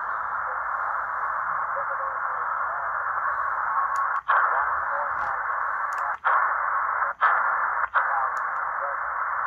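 Hanrongda HRD-747 shortwave receiver's speaker hissing with narrow-band static on single sideband, no clear signal. The hiss cuts out briefly four times as the keypad is worked.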